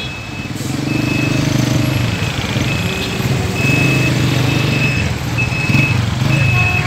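Street traffic: vehicle engines running steadily, with a high electronic beep repeating on and off.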